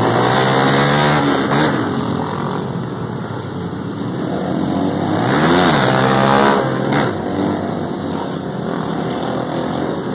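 Motorcycle engine running while riding, its pitch rising and falling as it revs near the start and again in a quick rev up and down about five to six seconds in, over steady road and wind noise.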